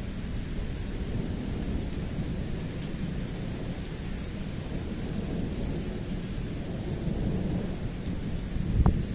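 Thunder rumbling on and on in a close thunderstorm, with wind and rain, and a short louder burst near the end.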